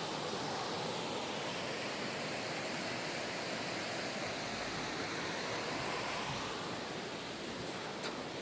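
Steady rush of a mountain stream's flowing water, with one short click near the end.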